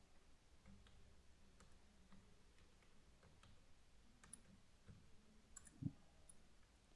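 Faint computer keyboard clicks as keys are pressed one at a time, a few seconds apart, with a soft low thump near the end.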